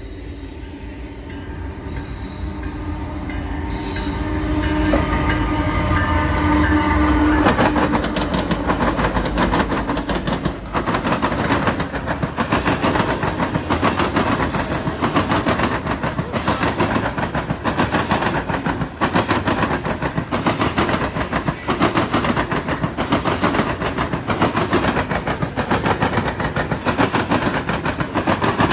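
Norfolk Southern diesel locomotives passing, their horn sounding and cutting off about seven seconds in. Loaded coal hopper cars follow, wheels clattering steadily over the junction's rails.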